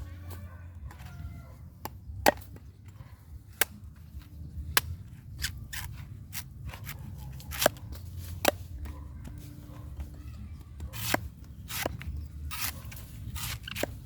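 A knife chopping and cutting into a coconut, with irregular sharp strikes, some much louder than others.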